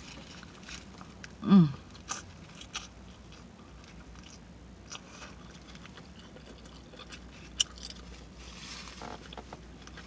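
Close-up eating sounds of a breakfast crepe with spinach, bacon and tomato: a bite at the start, then chewing with soft wet smacks and sharp lip clicks. About a second and a half in there is a short falling vocal sound from the eater, the loudest moment.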